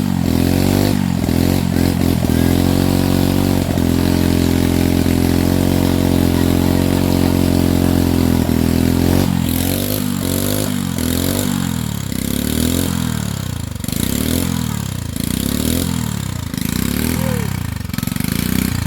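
Stihl MS 462 two-stroke chainsaw running, rising to high revs and held there steadily for several seconds, then revved up and let back down repeatedly, about once a second.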